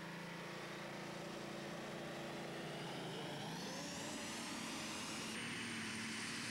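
Pulling tractor's engine running hard under load as it drags the weight sled, its pitch rising over the middle seconds.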